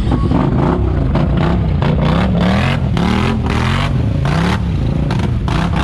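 ATV engine revving hard, its pitch rising and falling over and over as the quad fights up through deep mud ruts with its tyres spinning and throwing dirt.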